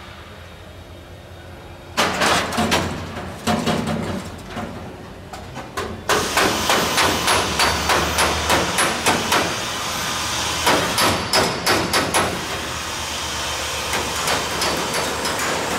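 Repeated hammer blows on metal, a few scattered knocks and then a steady run of a little over two blows a second, over a constant background hiss.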